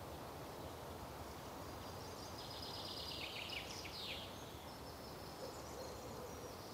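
Filler birdsong played while the house sound is cut: high bird chirps in a run about two and a half to four seconds in and again near the end, over a steady hiss.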